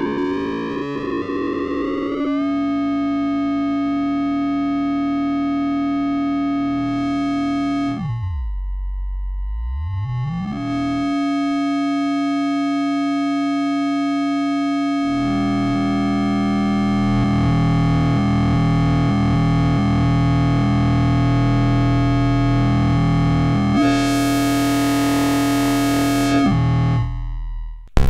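Erica Synths SYNTRX analog synthesizer oscillators droning as their pitches and mix levels are turned by hand. Sliding tones settle into one steady pitch in the first two seconds, then one voice swoops far down and back up about eight to ten seconds in. A lower tone with a beating wobble comes in about halfway, and a hiss joins near the end before the sound drops away just before the end.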